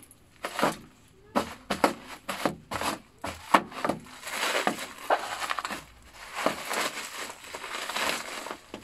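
Plastic bubble wrap and packing tape being picked at and pulled apart by hand: a string of sharp crackles, then from about four seconds in a longer, denser run of crinkling.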